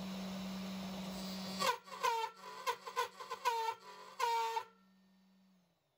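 Sainsmart 3030 PROVer Max CNC's 300 W spindle milling aluminium with an end mill at 1 mm depth of cut. A steady spindle tone runs under cutting noise, then from about two seconds in come a series of pitched squeals as the end mill chatters. The owner blames the chatter on the end mill sticking too far out of the collet. Near the end the cutting stops and the spindle tone sinks away as it spins down.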